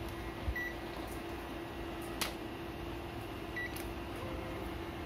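Digital multimeter beeping twice, two short high beeps about three seconds apart, with a light click between them, over a steady hum from the bench equipment.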